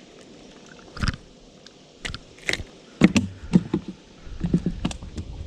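Knocks, thumps and scrapes on the boat, sparse at first, then a close run of handling knocks in the second half.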